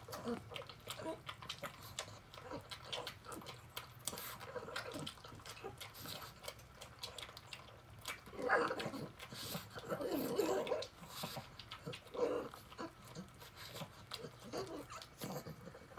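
A pug eating wet canned tuna from a ceramic bowl: a stream of small wet smacks and licks as her mouth and tongue work the food and knock the bowl. A few louder snuffles come in the second half.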